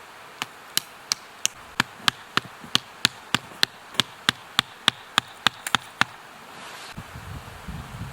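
A rapid run of sharp strikes, about three a second, each with a slight ring, that stops about six seconds in. Low rustling follows near the end.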